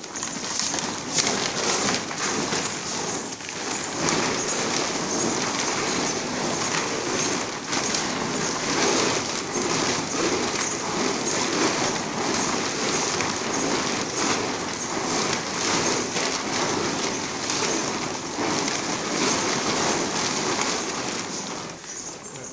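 Groundnut seed tumbling and rattling across a woven plastic sheet as two men lift and rock it, with the rustle of the sheet, a dense continuous patter. The seed is being mixed so the freshly sprayed seed-treatment coats every kernel.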